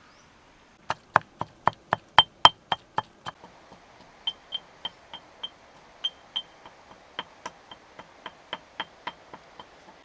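Pestle pounding in a small mortar: a run of sharp, ringing strikes about four a second, starting about a second in and loudest in the first run, then resuming in shorter, softer runs with brief pauses.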